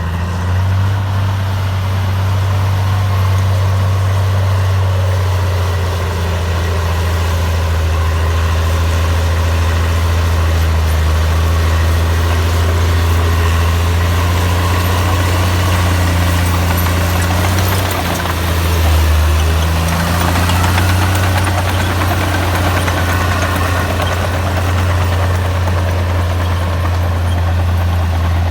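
Heavy diesel engine of an earthmoving machine running steadily with a deep hum. Its pitch shifts briefly about two-thirds of the way through, as the engine load changes.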